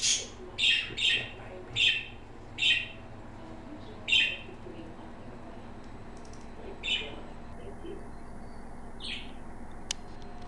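Young African grey parrot giving a run of short, high chirps, about eight in all, coming quickly at first and then thinning out. A single sharp click near the end.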